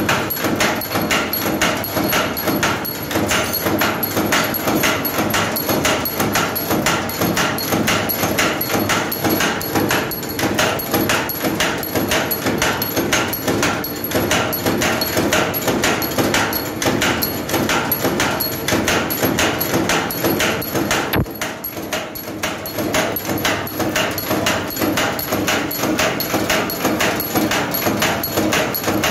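SUMAN wire straightening and cutting machine running, a steady fast clatter of even, repeated clacks as the wire is fed, straightened and cut into short lengths. It goes briefly quieter about two-thirds of the way through, then carries on as before.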